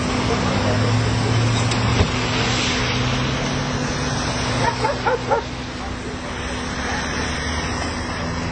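A dog barking, four or five quick barks in a row about halfway through, over a steady low engine hum.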